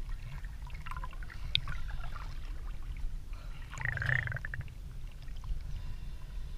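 Small waves lapping and splashing around a camera held at the water's surface, over a steady low rumble, with a louder gurgling splash about four seconds in as the lens dips into the water.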